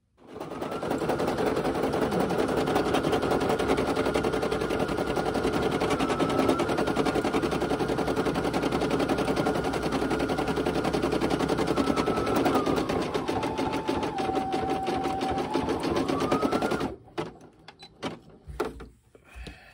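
Brother PE800 embroidery machine stitching out a design: a fast, even needle rattle with a motor whine that drops in pitch about two-thirds of the way through and then climbs back. It stops abruptly near the end, followed by a few light clicks.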